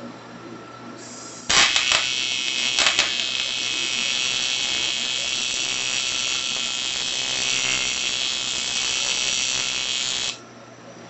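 AC TIG welding arc on an aluminium air-conditioning pipe at low current, around 30 amps. It strikes about a second and a half in with a brief crackle, then holds a steady high-pitched buzz before cutting off near the end.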